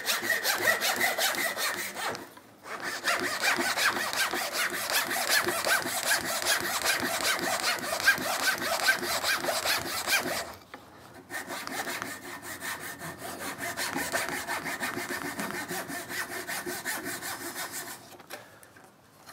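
Japanese pull saw cutting the cheeks of a tenon in a small wooden block: rapid back-and-forth strokes in three runs, with short breaks about two seconds in and about ten seconds in, and stopping near the end.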